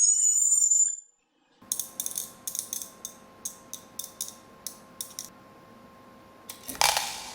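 A high whistle-like tone ends about a second in. After a short pause comes a run of irregular mechanical clicks and ticks over a faint steady hum, then a short hiss near the end that fades away.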